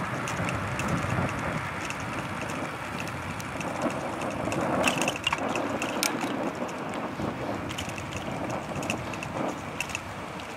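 Wind buffeting the microphone and tyre noise from a bicycle rolling along a tarmac road, with a light, regular ticking throughout.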